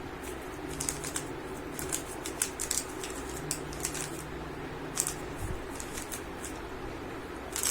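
Plastic 3×3 speedcube being turned rapidly during a solve: quick, irregular clicking and clacking of the layers.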